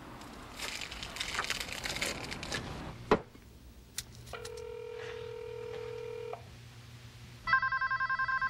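A drink being poured into a glass, then a steady tone for about two seconds. About three quarters of the way in, a landline telephone starts ringing with a loud electronic trilling ring.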